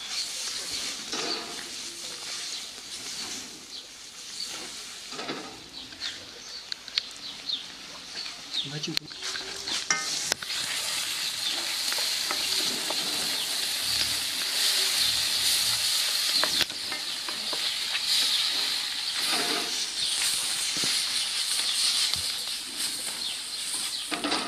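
Oyster mushrooms and vegetables sizzling in oil in a wok over an open fire, stirred and tossed with a wooden spatula. There are scrapes and knocks against the pan in the first half, and the sizzle grows louder and steadier about ten seconds in.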